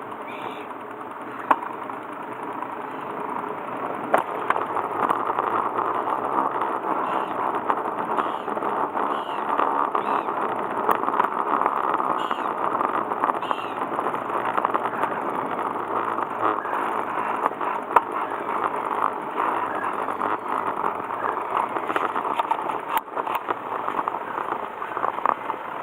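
An engine running steadily, with a few sharp clicks.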